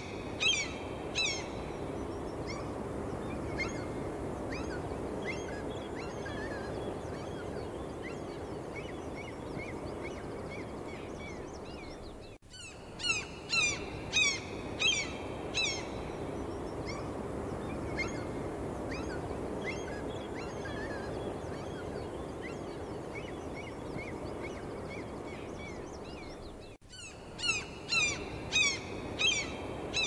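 Gulls calling: bursts of several quick, high calls, each falling in pitch, with fainter calls scattered between, over a steady background rush. The bursts return about every 14 seconds, each time after a brief dropout, as the recording loops.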